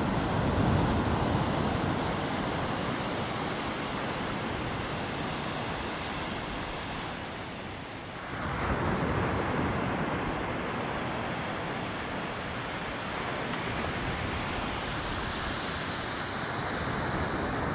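Small waves breaking and washing up a sandy beach: a steady rush of surf that dips briefly and swells again about halfway through.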